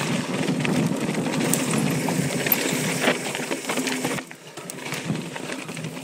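Intense ACV mountain bike riding down a dry dirt singletrack: tyres crunching over loose dirt, with the chain and frame rattling and clicking over bumps. The noise drops briefly a little after four seconds in.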